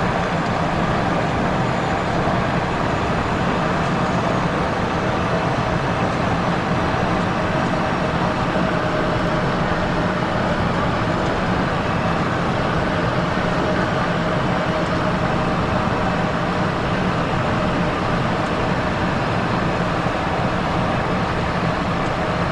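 Steady cabin noise of a Cessna Citation XLS on final approach: the rush of air and the hum of its twin Pratt & Whitney PW545 turbofans, even in level throughout.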